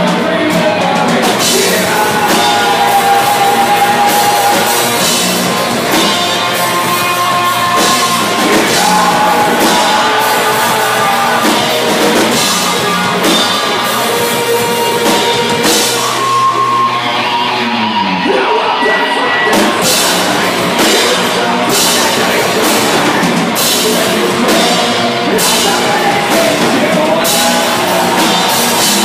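A live heavy rock band playing: distorted electric guitars, bass guitar and a drum kit with crashing cymbals, with a singer over them. The cymbals drop out briefly about eighteen seconds in, then come back.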